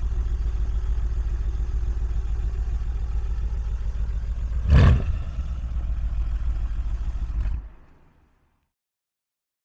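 Straight-piped twin-turbo 5.5-litre V8 of a 2016 Mercedes CLS63 S AMG idling steadily. About five seconds in there is one short, loud burst. The sound falls away about eight seconds in.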